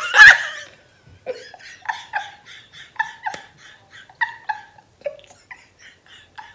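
A woman laughing: a loud burst right at the start, then a string of quieter short giggles, about three a second, that peter out toward the end.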